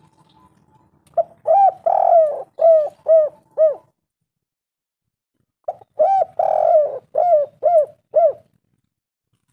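Spotted dove (tekukur) cooing: two call phrases a few seconds apart, each a short opening coo, a longer drawn-out coo, then three evenly spaced short coos.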